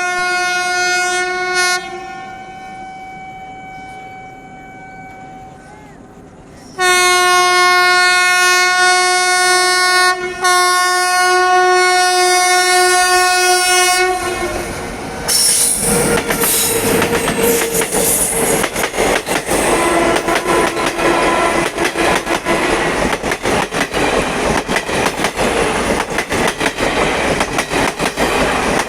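Locomotive twin-tone horn: a short blast, a fainter held note, then a long loud blast of about seven seconds with a brief break near the middle. About halfway through, the horn gives way to a train passing close, with rapid clickety-clack of wheels over rail joints.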